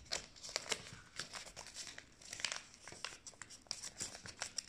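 A sheet of white paper being folded and creased by hand into a paper airplane wing, crinkling and rustling with many short crackles.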